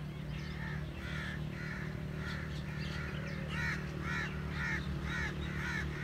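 A bird calling in a rapid series of short, harsh, caw-like calls, about three a second, loudest a few seconds in, over a steady low hum.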